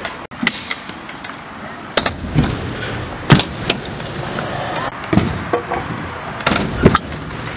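Stunt scooter wheels rolling on skatepark concrete, with several sharp clacks of the deck and wheels striking the ground as a rider attempts a barwhip.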